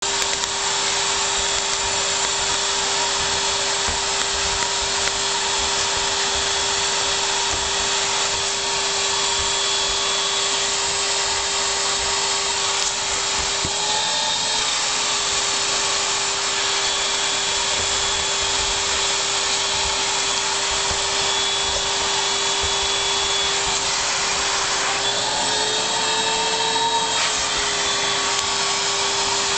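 Vacuum cleaner motor running steadily with a loud whirring hiss; its pitch rises briefly twice, about fourteen seconds in and again around twenty-five to twenty-seven seconds.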